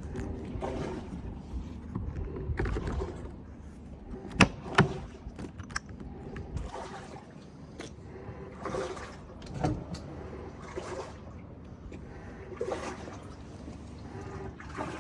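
Refrigerator door and fittings being handled during removal and refitting: irregular clattering, rubbing and small clicks, with two sharp knocks close together about four and a half seconds in.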